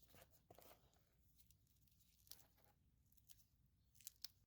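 Near silence with a few faint, scattered clicks and rustles: hands handling a tire plug strip and the plug installation tool.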